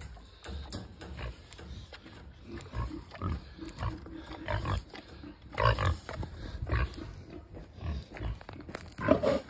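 Pig grunting again and again in short, low grunts, with a louder grunt about six seconds in.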